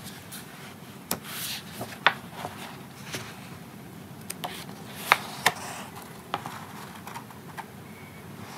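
Paper handling as a softcover zine is picked up, opened and its pages turned: soft rustling of paper with several sharp snaps and taps, the loudest about two seconds and five seconds in.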